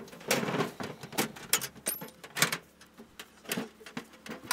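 An old metal suitcase being handled: a series of sharp clicks and knocks as its latches are worked open.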